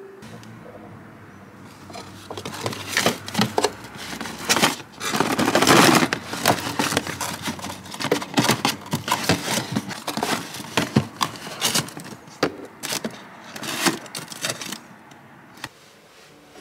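Rummaging in a freezer drawer: a cardboard ice-cream box and plastic packaging crinkling, rustling and scraping in quick irregular clicks, loudest about six seconds in.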